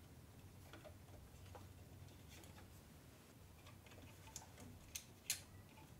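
Faint clicks and ticks of a hex driver working out the small screws on the rear of a 3D printer's extruder housing, with a few sharper metal ticks near the end.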